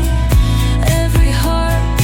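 Background pop song with a steady beat: sung or synth melody over bass and drums.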